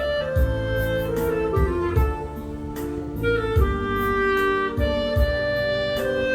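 Background music: a melody of long held notes, stepping down and back up, over a steady beat.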